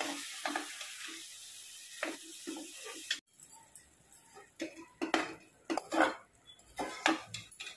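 Steel spatula scraping and knocking against an aluminium pressure cooker while ground onion paste fries in oil, with a faint sizzle. The hiss cuts off suddenly about three seconds in, leaving scattered scrapes and clinks of the spoon on the pot.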